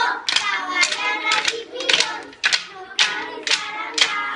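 Children beating a Tió de Nadal log with sticks, sharp knocks landing in a steady rhythm about twice a second, while a group of children's voices chant along.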